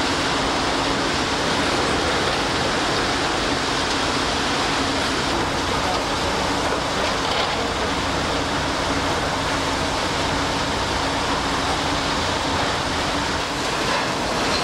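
Steady, loud rushing noise with a faint low hum underneath, unbroken throughout.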